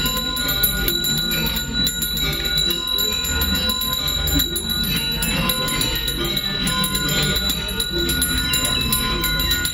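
Balinese priest's hand bell (genta) rung without a break, a steady high ringing that accompanies the mantras for the communal prayer, with a low murmur of voices underneath.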